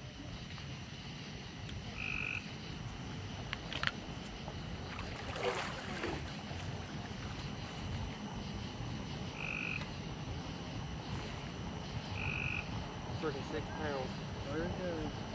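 Frogs calling at night by a lake: a short high call repeated every few seconds, with a run of quicker calls near the end.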